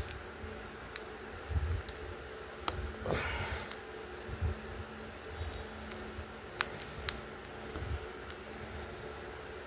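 Knockoff Lego-style plastic bricks being handled and pressed together by hand: a few sharp plastic clicks and soft knocks, over a steady low hum.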